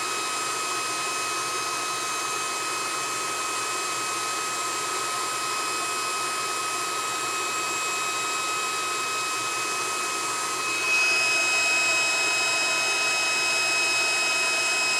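Cooling fan of a handheld induction heater running steadily, with thin high steady whine tones over the air noise; the heater is switched on but not heating, since its coil button has not been pressed. About eleven seconds in the sound gets a little louder and its high tones shift.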